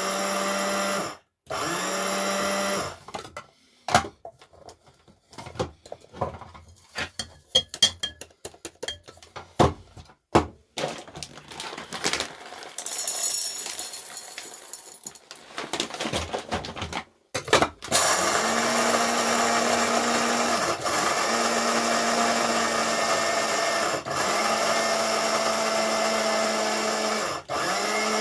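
Electric coffee grinder motor running in two short bursts, then a stretch of irregular clicks and taps. From about two-thirds of the way in, the grinder runs steadily, with a few brief dips in its hum.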